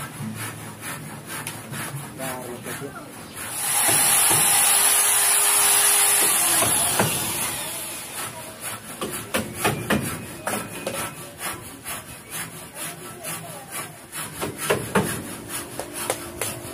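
PVC pipe and wire being handled and worked by hand, with irregular plastic clicks, knocks and rubbing. About three and a half seconds in, a loud rasping hiss runs for about three seconds and then fades away.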